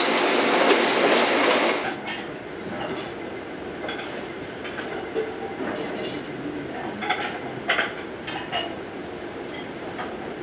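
Forks and cutlery clinking against plates and dishes in a series of short, scattered clicks during a meal. A louder, steady rushing noise of unclear source runs at the start and cuts off about two seconds in.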